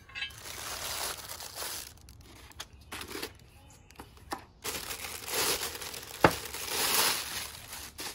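Clear plastic bag crinkling and rustling as it is pulled and handled around cast iron pieces, in two long stretches with short rustles between. A single sharp knock comes about six seconds in.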